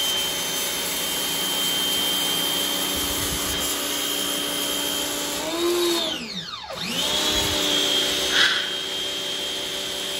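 WAP Ousada Plus 2200 electric pressure washer running with a steady motor whine while its lance sprays a jet of water. About six seconds in, the motor cuts out and winds down, then starts up again and rises back to speed within about a second.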